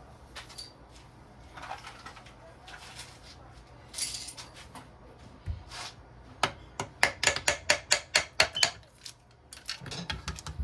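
Metal tools and engine parts clinking and scraping on a workbench during an engine teardown, then a quick run of about a dozen sharp metallic taps, roughly five a second.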